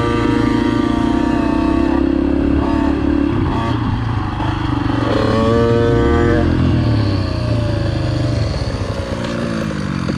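Dirt bike engine running on a motocross track, holding a steady pitch, then revving up sharply about five seconds in before its pitch falls away steadily near the end.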